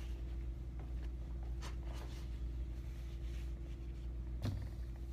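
Room tone: a steady low hum with a few faint clicks, and a slightly stronger knock about four and a half seconds in.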